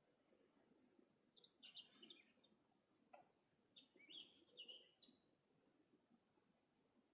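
Faint swamp ambience: birds chirping here and there, in short clusters about two and four seconds in, over a steady high-pitched insect buzz.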